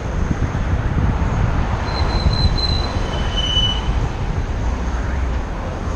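City traffic heard on the move: a steady low rumble of road and wind noise, with two short high-pitched squeals, the second lower than the first, about two and three and a half seconds in.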